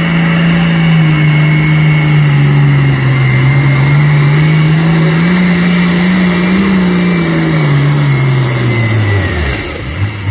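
International pulling tractor's engine running flat out while hauling the sled; its pitch wavers up and down, then the revs drop away sharply near the end.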